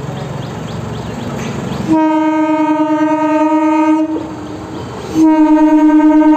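Electric multiple unit commuter train sounding its horn twice as it approaches. Under the rumble of the oncoming train, a steady, unwavering blast of about two seconds starts about two seconds in, and a second blast starts about five seconds in and carries on.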